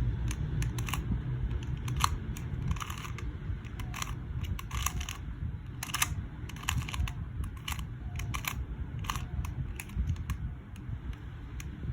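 QiYi 2x2 speed cube being turned through an algorithm: a run of irregular plastic clicks and clacks as its layers snap round, over a low steady background rumble.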